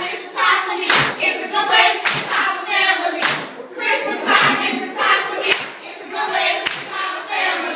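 A group of voices singing or chanting, with a steady beat of claps about once a second.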